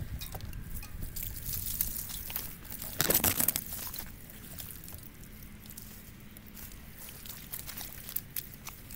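Bicycle tyres squelching and crackling slowly through deep, rutted mud, with irregular small clicks and one louder burst of noise about three seconds in.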